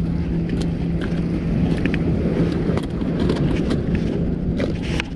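A steady low hum under wind rumbling on the microphone, with scattered light clicks and knocks of gear being handled.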